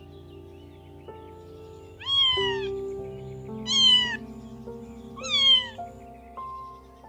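A domestic cat meowing three times, about one and a half seconds apart, each meow rising then falling in pitch, over background music.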